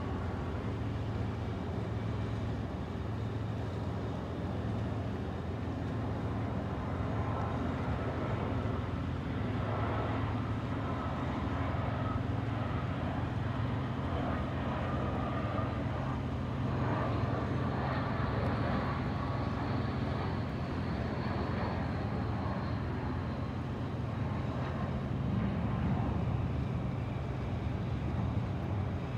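A jet airliner passes low overhead, its engine noise and whine swelling through the middle and fading away. Underneath, a boat engine drones steadily at a low pitch.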